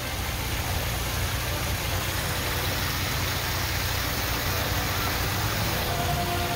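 Narrowboat's inboard diesel engine running at low revs, a steady low chugging, with water rushing through the lock gate.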